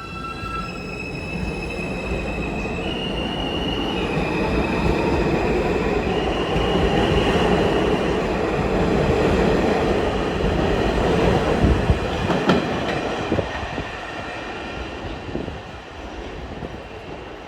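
New York City subway N train moving through the station. A propulsion whine climbs upward in steps, and wheel-on-rail rumble swells, peaks with a few sharp clacks about twelve seconds in, then eases off.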